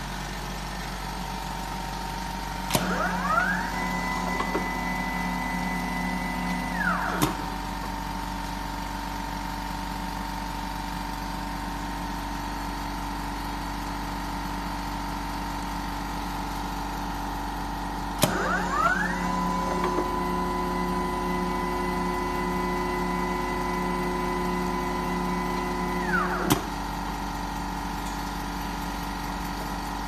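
Wire harness taping machine's tape-wrapping rotor running through two wrapping cycles over a steady machine hum. Each cycle opens with a click and a quickly rising motor whine that holds steady, then winds down and stops with a click. The first cycle lasts about four seconds and the second about eight.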